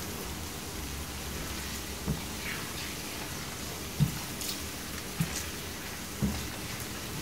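Flour-and-oil roux with sliced onions sizzling steadily in a frying pan on medium-high heat as it browns. A silicone spoon stirring it knocks against the pan four times, loudest about four seconds in.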